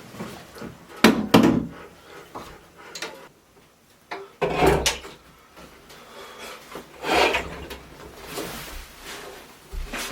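Wooden knocking and scraping, like a drawer or cabinet door being handled, in three bouts about a second in, near the middle and about seven seconds in.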